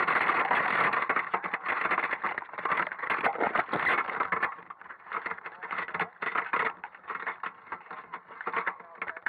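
Water splashing and streaming off a crab drop net and the camera housing as the net is lifted out of shallow water, with knocks and rattles from the net's wire frame. The splashing is heavy for the first four seconds or so, then gives way to scattered knocks and drips.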